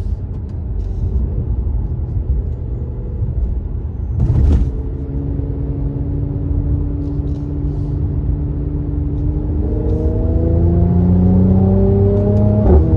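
Mercedes-AMG C43's engine and exhaust heard from inside the cabin while driving: a steady low rumble with a sharp burst about four seconds in. The engine note then rises slowly in pitch and grows louder as the car accelerates. Near the end it drops suddenly with a sharp crack.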